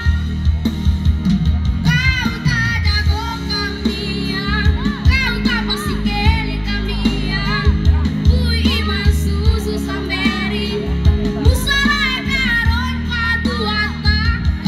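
A singer performing a song into a microphone, the voice wavering in pitch, over band accompaniment through the stage loudspeakers. The sung phrases come in about two seconds in.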